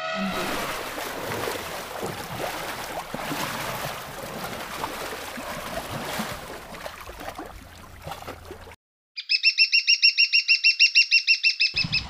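Wet sloshing and splashing from elephant calves wading in mud. After a brief silent break, a high chirping trill sets in, loud and even at about ten chirps a second, for nearly three seconds.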